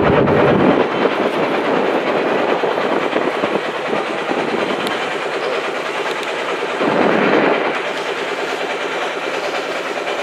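Motor boat's engine running steadily with a rapid chugging beat, swelling louder for a moment about seven seconds in.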